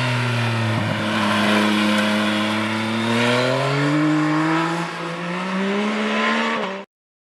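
Motorcycle engine accelerating, its pitch climbing slowly and steadily, then cutting off suddenly near the end.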